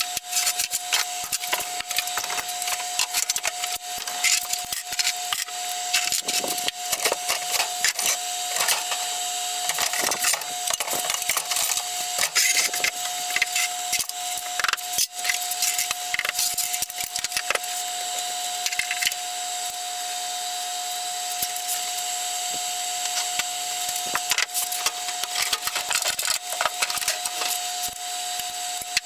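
Dense clicking and clattering of tools and metal parts over a steady hum during disassembly of a small three-wheeled band saw.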